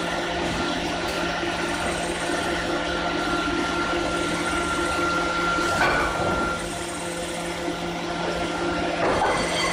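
Steady hum and high whine of a steel round bar induction heating line's automatic feeder and roller conveyor running. Two louder metallic knocks, about six and nine seconds in, as the feeder's lifting arms move steel bars onto the rollers.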